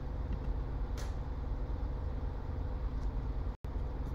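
Steady low background hum with a faint hiss, the room noise of the recording between narration, broken by a brief dead-silent dropout a little before the end.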